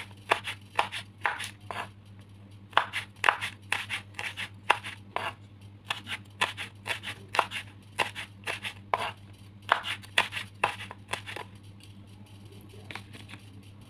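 Kitchen knife slicing chilies diagonally, a crisp cut about three times a second with short pauses, stopping about eleven seconds in.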